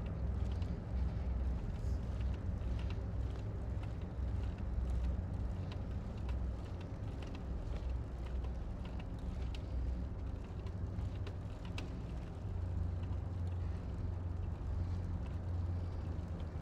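A low, steady rumble with a faint hum in it, and light scattered ticks and clicks over the top.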